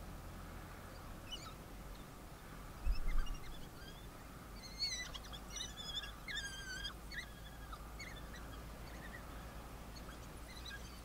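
African wild dogs, adults and pups, giving short high-pitched squeaks and twittering chirps in scattered bursts, busiest in the middle, as the pups beg at the adults' mouths. A low dull bump sounds about three seconds in.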